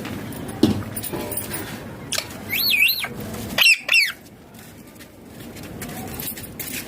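Indian ringneck parakeet giving two short bouts of high, rapidly wavering calls about two and a half seconds in and again a second later.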